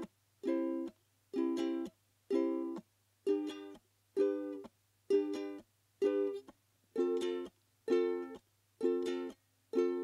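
Ukulele strumming short chords, C and then G, about one a second, each chord stopped after about half a second.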